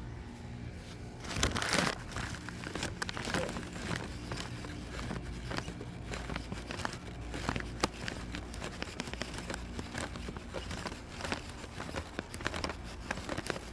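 Plastic packaging crinkling and rustling as it is handled, with many small irregular clicks and a louder burst about one and a half seconds in, over a steady low hum.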